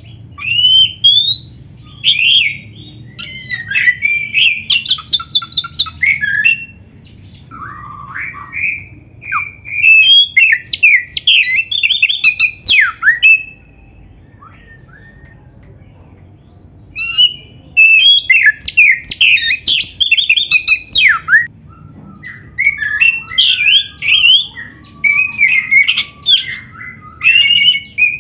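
Oriental magpie-robin (kacer) singing a loud, rapid, varied song of whistles, sweeping glides and chattering notes, the full 'isian' song with mimicked phrases of other birds. It comes in bursts, with a break of about three seconds near the middle.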